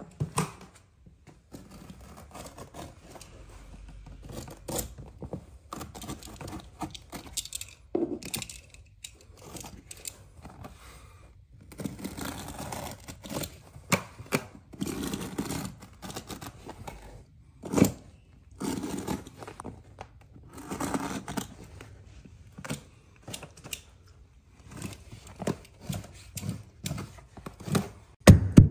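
Utility knife slicing through stair carpet backing in short strokes, giving rasping tearing sounds, with rustling as the carpet is handled and a sharp knock a little past halfway.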